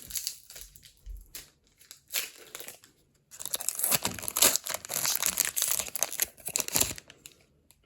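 A foil Pokémon card booster pack wrapper being torn open and crinkled. There are a few light handling clicks, then a dense crackling run from about three seconds in that stops just before the end.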